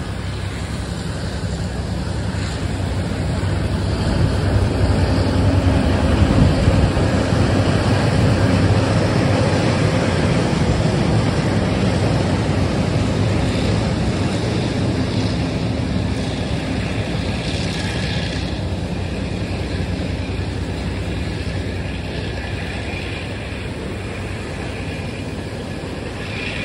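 Taiwan Railways freight train rolling past on a viaduct: a steady rumble of wheels on rails that swells to its loudest about six seconds in, then slowly fades as the wagons go by.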